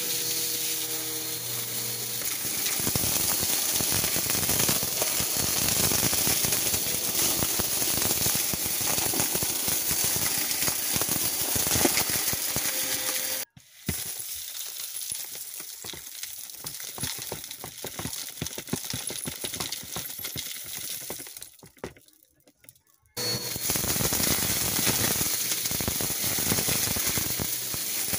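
Bagless upright vacuum sucking up a glittery mix of beads, sequins and grit, the pieces crackling and rattling as they are pulled through it. Partway through, a quieter rattling hiss as the mix pours from the dust bin into a plastic tote, then a brief gap and the loud crackle of vacuuming again.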